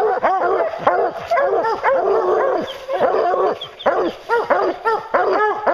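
A pack of English hounds barking and bawling rapidly over one another at the base of a tree, several dogs at once with a brief lull a little past halfway. This is tree barking, the hounds baying game held up the tree.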